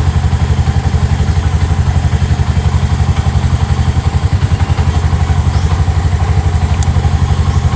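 Bajaj RE auto-rickshaw engine idling steadily with an even pulse. It is running again after a corroded, broken wire was cut out and connected directly, curing a no-start.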